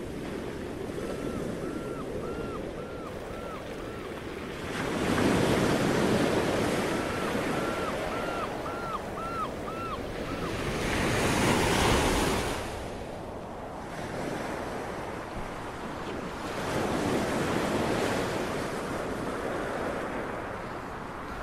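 Sea waves breaking on a beach over a steady wash of wind, the surf swelling about every six seconds. Two quick runs of short repeated chirps, one near the start and one a third of the way in.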